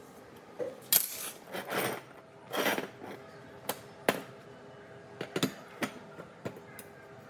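Hand work on metal fan parts: a sharp click about a second in, three short swishing sounds over the next two seconds, then a string of separate light clicks and knocks.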